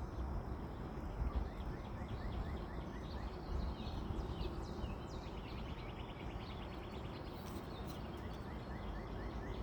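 Outdoor ambience: a steady low background noise with rows of faint, quick, repeated chirps.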